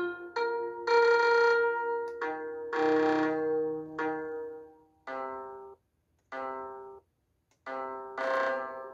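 Background music of pitched instrumental notes. Overlapping notes in the first half give way to single notes that ring briefly and fade, each followed by a short gap of silence.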